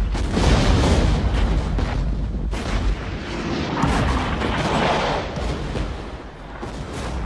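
War-film battle soundtrack: a continuous low rumble of artillery fire and explosions, with sharp gunshot-like cracks now and then.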